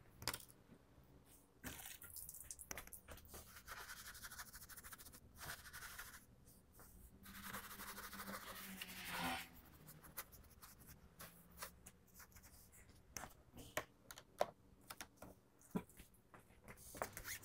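Faint, intermittent scrubbing of a tyre brush on a shampoo-foamed car tyre, with scattered light clicks; the scrubbing grows louder for a couple of seconds around the middle.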